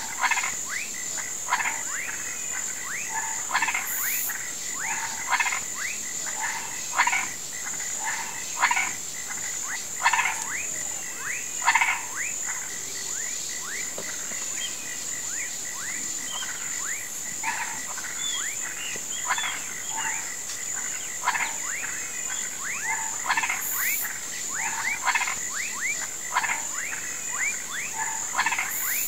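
Chorus of frogs and toads croaking in a flooded marsh: many short calls overlapping and repeating about once a second, some as quick rising chirps. Under them runs a steady high-pitched drone.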